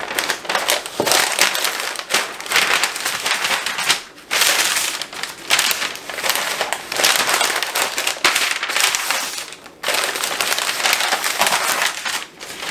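Pink butcher paper crinkling and rustling as it is pulled over and folded tightly around a smoked brisket for the wrap. Long loud stretches of crackling, broken by short pauses about four and ten seconds in.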